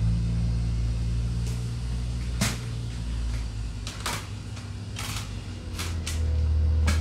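Several short knocks and clicks of condiment bottles and containers being handled on a table, over a steady low hum that deepens and gets a little louder about six seconds in.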